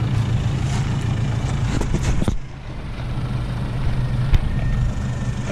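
Nissan Navara ute's engine running steadily at low revs as it crawls over rocky ground, with a few clicks around two seconds in and a sharp knock about four seconds in.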